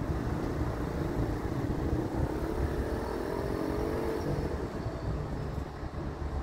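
Transport for Wales Class 197 diesel multiple unit pulling away, its diesel engines rising in pitch as it accelerates from about two seconds in, over a low rumble.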